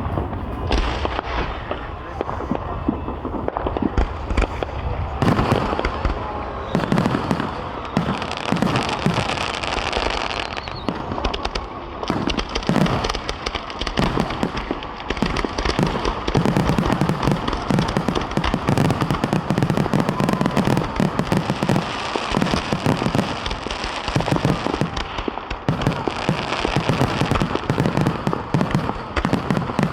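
Aerial fireworks going off in a dense, unbroken barrage: many overlapping bangs and booms with crackling throughout.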